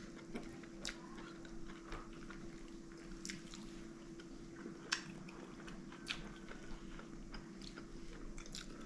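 Close-up eating sounds: quiet chewing with scattered small clicks and smacks, over a faint steady hum.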